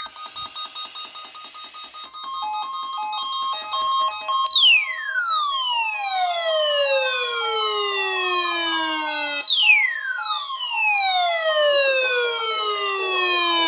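Electronic tones: a rapid pulsing for about two seconds, then short stepped beeps, then two long whistle-like sweeps, each falling steadily from high to low pitch over about five seconds.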